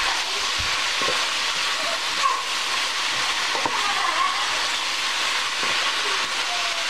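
Beef and snow pea stir-fry sizzling steadily in a stainless steel skillet, with a few soft scrapes from a wooden spatula stirring it.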